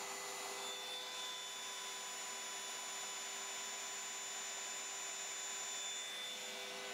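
Homemade MDF CNC router running as its spindle bit mills a part out of MDF: a steady whine over a hiss. One high tone comes in about half a second in, and another drops out near the end.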